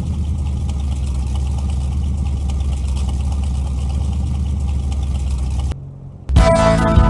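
A car engine idling steadily with a low, even hum, which cuts off suddenly nearly six seconds in. Music starts about half a second later.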